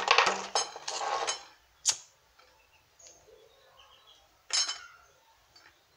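Small hard objects clattering and clicking as tools are handled, then one short scratchy burst about four and a half seconds in, as a flame is struck to heat the plastic hose for joining.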